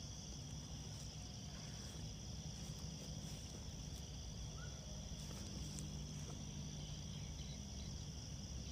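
Night insects, crickets, chirping in a steady high-pitched chorus, with a faint low hum underneath.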